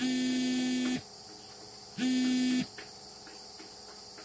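A horn blowing twice, each blast one steady buzzy note about a second long, the second a little shorter, over a continuous chirring of crickets.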